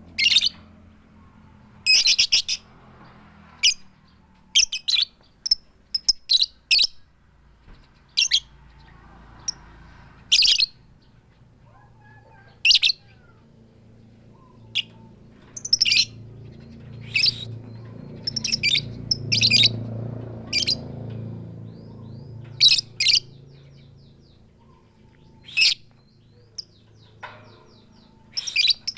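Female lovebird calling a male with short, sharp 'tik tik' and 'keyok' calls, without the long chattering 'ngekek' trill. The calls come one or a few at a time, at irregular gaps of a second or two.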